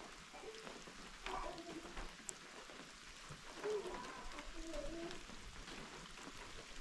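Steady rain falling, with faint voices talking now and then in the background.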